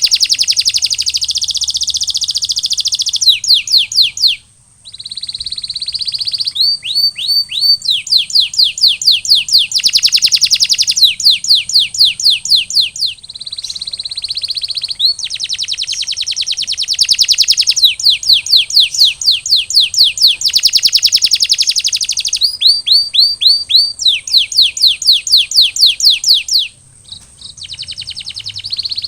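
Domestic canary singing a continuous song of fast rolling trills. Each phrase is a rapid run of falling notes, changing in pace from phrase to phrase, with two brief pauses.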